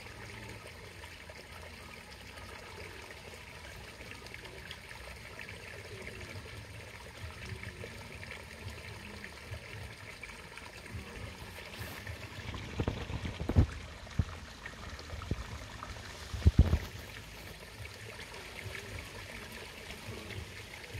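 Steady trickle of running water in a garden pond. A few louder, dull thumps and bumps come together about two-thirds of the way through.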